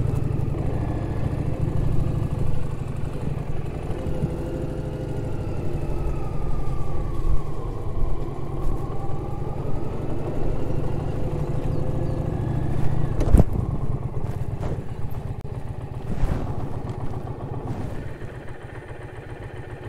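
Indian Challenger's liquid-cooled V-twin engine running at low speed as the bike rolls across a steel-grate footbridge. There is a sharp knock about 13 seconds in and another near 16 seconds.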